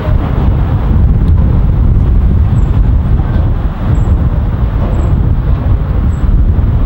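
Loud, steady low rumble of road traffic crossing the Golden Gate Bridge approach deck overhead.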